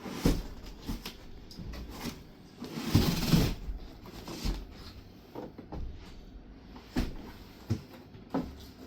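Cardboard wardrobe being handled and rolled over: a knock near the start, a longer scrape of cardboard about three seconds in, then a few light knocks near the end.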